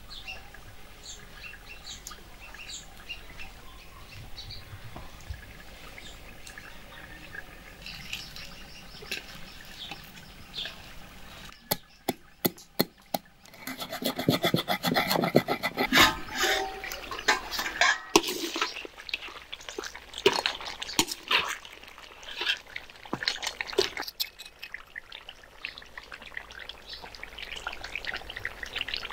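A wooden pestle pounds and grinds whole spices in a stone mortar. It makes a run of sharp knocks, then a dense stretch of crushing and rubbing with more scattered knocks. Birds chirp faintly in the background before the pounding starts.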